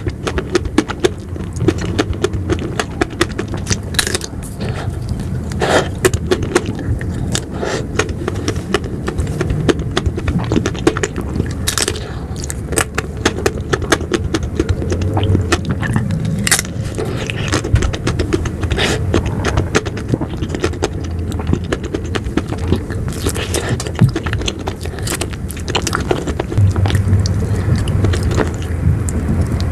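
Close-miked eating of ice cream: a steady run of wet mouth clicks, crackles and scraping.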